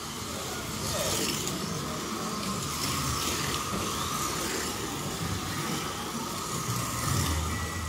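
Scalextric slot cars running down the straight, their small electric motors giving a steady whine that swells as cars pass, one close by about four seconds in.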